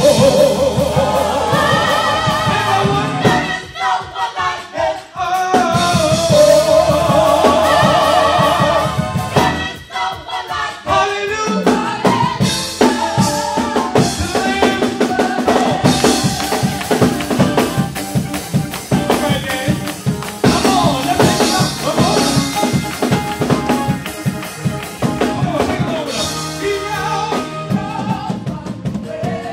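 Live gospel performance: a male lead singer with a group of backing singers, accompanied by a band with drum kit. The opening is held sung notes with vibrato, and from about halfway through drums keep a steady beat under the voices.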